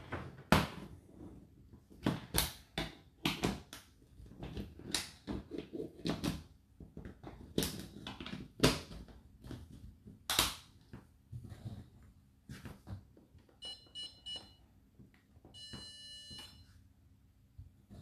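Whirlpool WFO3P33DLXUK dishwasher at the start of its wash cycle: irregular clicks and knocks, then two short bursts of rapid high-pitched electronic beeping about 14 and 16 seconds in.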